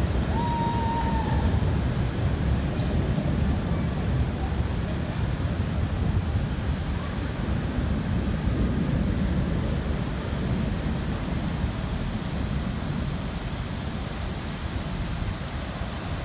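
Heavy summer rain pouring steadily, with low thunder rumbling lightly under it, easing slightly over the last few seconds. A brief, thin high tone sounds once about half a second in.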